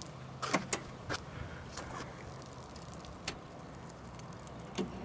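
Car hood being opened by hand: short metallic clicks and knocks from the hood latch and safety catch being released, the hood lifted and set on its prop rod, about six sharp clicks spread over a few seconds above a faint low hum.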